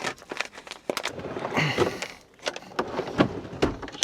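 Light clicks and knocks of kitchen utensils and containers being handled, with a short rustle about a second and a half in.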